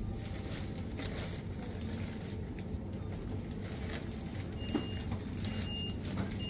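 Supermarket ambience: a steady low hum with scattered faint clicks and knocks. About two thirds of the way in, a high electronic beep starts repeating, three short beeps under a second apart.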